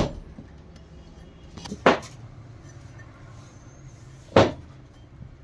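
Three sharp knocks on metal, about two seconds apart, from work on a Wilden air-operated diaphragm pump as a part that won't go in is forced into place, over a low steady hum.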